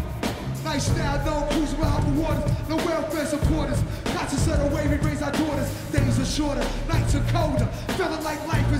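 Live hip-hop band playing, with a heavy bass and drum beat and a voice rapping over it.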